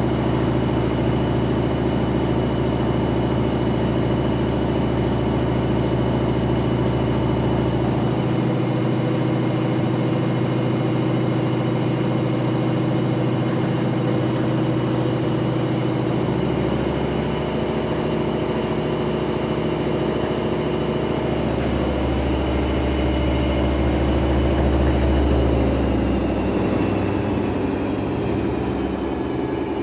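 Daewoo DWD-FT1013 washing machine in its 800 rpm spin with an unbalanced load: a steady motor whine over a heavy low rumble that swells and fades. Near the end the whine falls in pitch as the drum slows.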